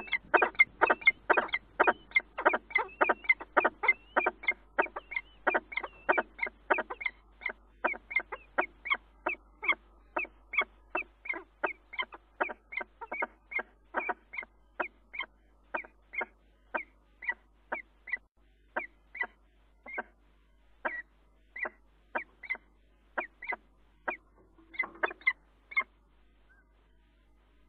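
A falcon giving a long series of short, harsh calls. The calls come about four a second at first and slow to fewer than two a second toward the end.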